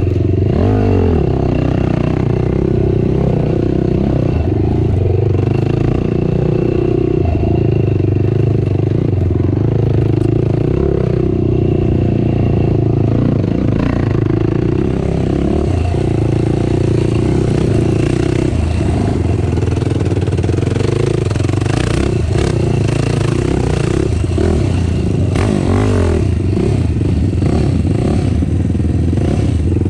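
Racing ATV engine running hard under way, its pitch rising and falling with the throttle. Clattering and knocks from the machine over rough ground come through, most of them in the second half.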